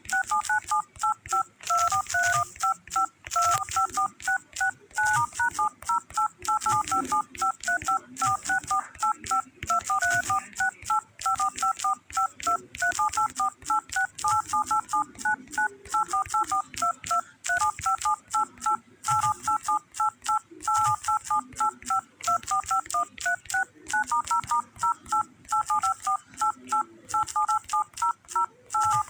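Samsung Galaxy phone keys being tapped in quick succession, each tap giving a short two-tone touch-tone (DTMF) beep with a click, several a second, the pitch pairs changing from key to key.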